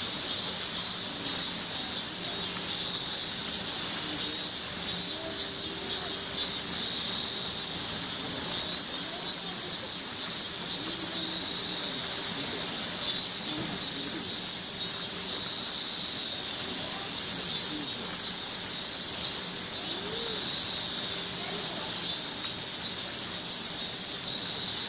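A chorus of cicadas singing: a steady, high-pitched buzz, with a higher pulsing call that comes in short runs of quick pulses every few seconds.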